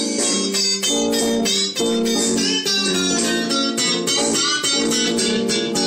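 Guitars playing a blues jam, picked notes and chords ringing one after another.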